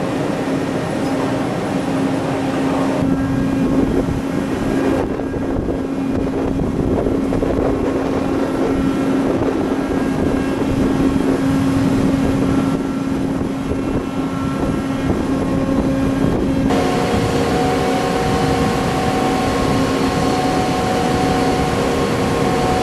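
Steady drone of drilling-ship machinery with a constant hum running through it. The background mix changes abruptly about three, five, thirteen and seventeen seconds in.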